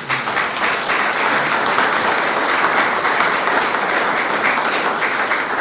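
Audience applauding: many hands clapping at once in a dense, steady spread of claps.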